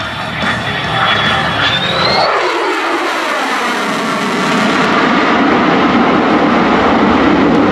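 Lockheed Martin F-35A's single Pratt & Whitney F135 jet engine in afterburner during a display manoeuvre: loud, rushing jet noise whose tone sweeps as the aircraft moves across the sky. About three seconds in, the deep rumble briefly drops away.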